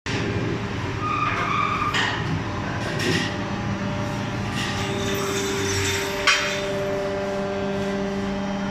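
Die-casting workshop machinery running with a steady hum, with scattered clanks and one sharp metallic knock about six seconds in.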